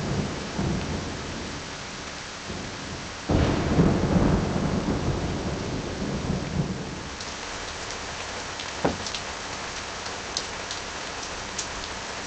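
Steady rain with a loud clap of thunder about three seconds in that rumbles on for a second or two. Later come a single sharp crack and scattered drip-like ticks.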